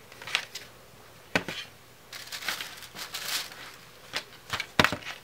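Paper and packaging being handled: crinkling rustles with a few sharp taps, the longest rustle between about two and three and a half seconds in.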